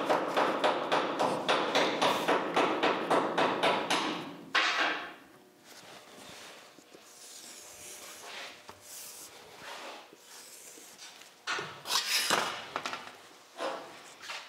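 Quick, even back-and-forth rubbing strokes of a hand working on a sheet of steel, about five a second, stopping about four seconds in. Then sharp metallic clanks as a steel straightedge is set down and shifted on the sheet, loudest about twelve seconds in.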